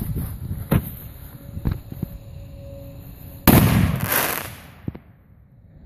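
A firework shell fired from a homemade steel ground mortar: one sudden loud blast about three and a half seconds in, its noise fading over about a second. A few sharp clicks come before it.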